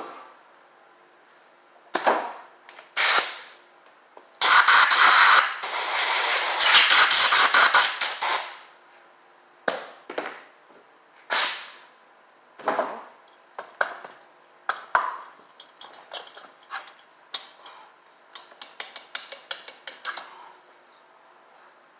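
Compressed-air blow gun blowing carbon out of the top of a Harley twin cam engine at the pistons, in short hissing blasts with one long blast of about four seconds. It is followed by a run of light clicks and ticks.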